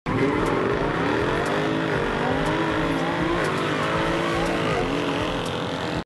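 High-performance car engine accelerating hard, its pitch climbing through the gears and dropping back at three quick upshifts. A faint tick comes about once a second.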